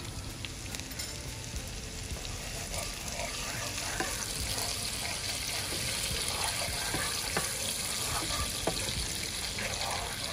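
Garlic butter sauce sizzling and bubbling in a frying pan, stirred with a wooden spoon. The sizzle gets louder about four seconds in.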